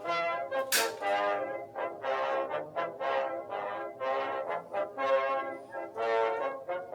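Music led by brass instruments, playing a run of held notes that change pitch every half second or so, with one sharp hit about a second in.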